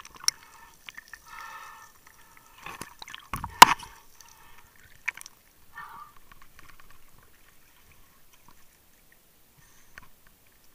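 Muffled underwater bubbling and gurgling heard from below the surface, with a single sharp knock about three and a half seconds in; the bubbling grows fainter in the second half.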